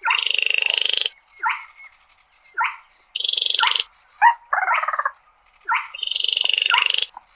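Baillon's crake calling. Three dry, frog-like rattles about a second long each, with short downslurred notes in between.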